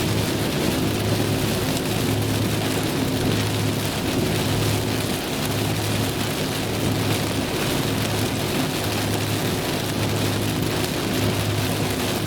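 Rain falling steadily on a moving car, with the low, even drone of the car's engine and tyres underneath.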